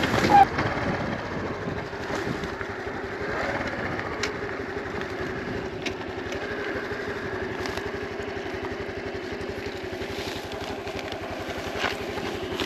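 Honda Super Cub 125's single-cylinder engine running at a steady pitch while the motorcycle is ridden. A short loud knock about half a second in.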